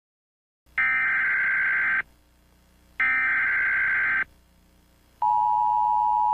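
Emergency Alert System tones: two harsh data bursts of the SAME header, each about a second long with a second's gap between them, then the steady two-tone EAS attention signal starting about five seconds in.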